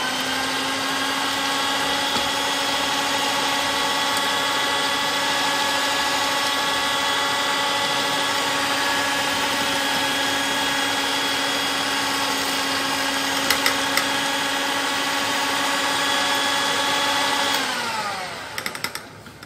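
Electric hand mixer running at one steady speed, its motor giving a steady whine as the twin wire beaters whip partly frozen ice cream mixture in a glass dish. About 17 seconds in the motor winds down with a falling pitch, followed by a few sharp clicks.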